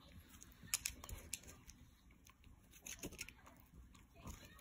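Miniature schnauzer gnawing on a knotted chew bone: faint, irregular crunches and clicks of teeth on the chew.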